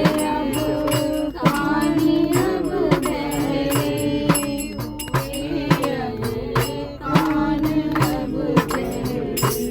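A devotional bhajan sung by voices to a steady percussion beat of sharp strikes, such as clapping or small cymbals.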